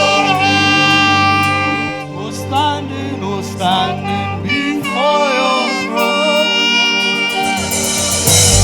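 Live gospel worship music: sustained chords with a wavering melody line over them. The bass drops out about halfway through, and the full band comes back in right at the end.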